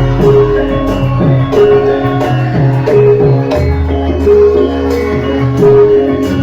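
Javanese gamelan music for a lengger dance: sustained struck melodic notes over kendang drum strokes that drop in pitch, about two a second.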